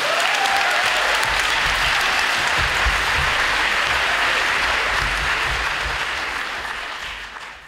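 Audience applauding steadily at the end of a dance number, the clapping dying away near the end.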